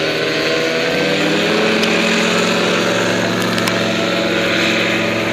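Paramotor's engine droning in flight overhead; its pitch slides down about a second in, as if the throttle eases off, and then holds steady.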